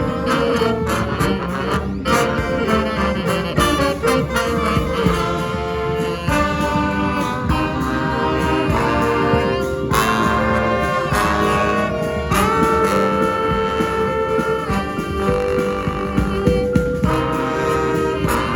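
Live brass band playing an up-tempo piece, horns holding and changing chords over a low bass line with sharp drum hits.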